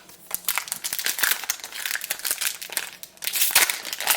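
A trading card booster pack wrapper being torn open and crinkled by hand, with a rapid, irregular crackling throughout.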